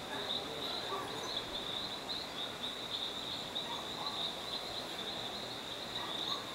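Night insects chirping in a steady high-pitched chorus that pulses unevenly several times a second. Faint rising-and-falling calls sound lower down.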